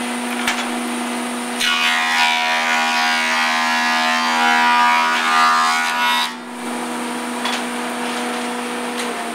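Powermatic thickness planer running steadily. About a second and a half in, a glued-up hardwood board feeds through and the cutterhead cuts it for about four and a half seconds, much louder, with chatter. Then the cut ends and the machine runs on alone.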